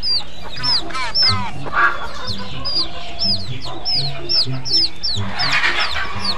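Chicks peeping: a steady run of short, high chirps, each falling in pitch, several a second, over background music with a regular low beat.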